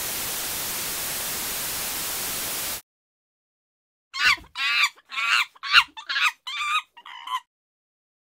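Steady hiss of white noise that cuts off suddenly after about three seconds. After a pause comes a run of about seven short, high-pitched chimpanzee screeches, each bending in pitch.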